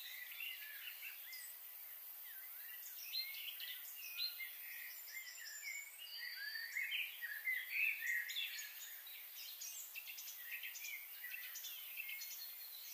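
Small birds chirping and twittering, many short overlapping calls, over a steady faint high hiss.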